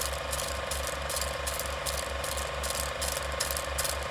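Old film projector sound effect: a steady mechanical clatter, rattling about four to five times a second, with scattered sharp clicks.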